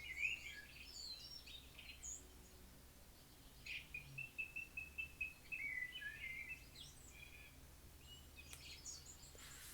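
Faint birdsong: scattered chirps, with a quick trill of repeated notes about four seconds in.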